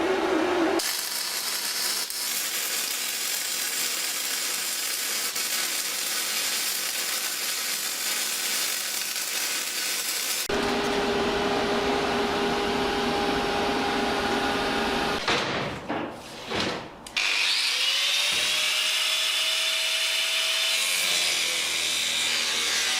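Power tools running on metal in a string of cut-together clips: a steady hissing stretch, then a tool running with a steady whine, then another with a higher whine.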